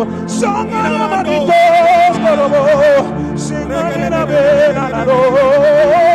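Worship music: a solo voice sings long, wavering held notes over steady sustained keyboard chords.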